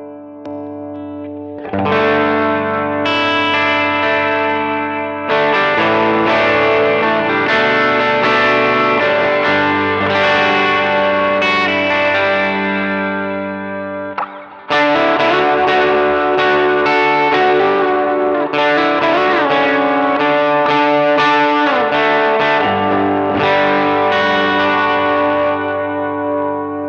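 Electric guitar played through an EP Drive overdrive pedal: ringing, overdriven chords and single notes with some bends. The sound drops out briefly about halfway through, then the chords come back in.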